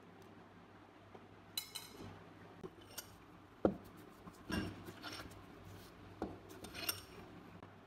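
Rusty steel pistol parts being handled at a workbench: scattered small metal clicks and clinks, two of them ringing briefly, and a louder knock a little before halfway.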